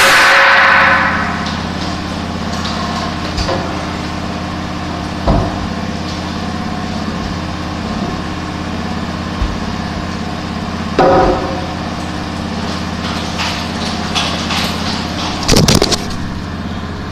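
A steady machine hum, like an engine or motor running, with a loud burst of noise at the start and a few sharp knocks, about one every five seconds.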